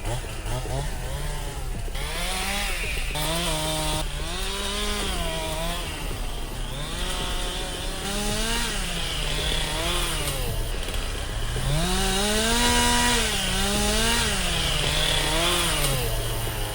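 Gas chainsaw cutting wood, its engine revving up and dropping back again and again, the pitch rising and falling every second or two.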